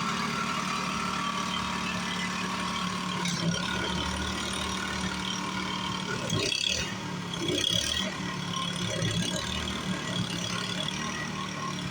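An engine running steadily at idle, with two short rustling or knocking sounds around the middle.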